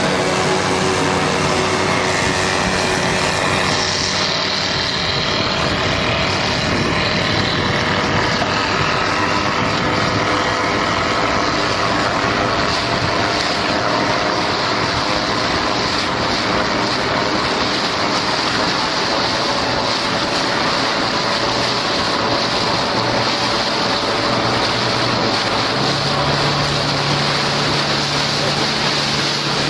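Engine running with a steady drone, mixed with wind noise on the microphone; its pitch shifts slightly a few seconds in and again near the end.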